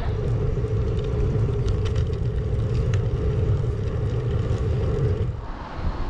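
Wind rumbling on an action camera's microphone while cycling, with a steady hum underneath that stops about five seconds in.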